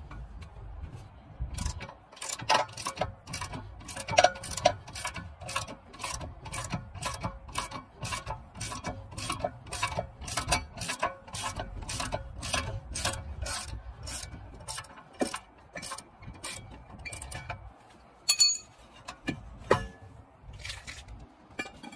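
Socket ratchet clicking steadily, about two clicks a second, as it is worked back and forth to turn a threaded rod that presses a rusted, stuck brake rotor off the hub. The clicking stops near the end, leaving a few separate clicks and knocks.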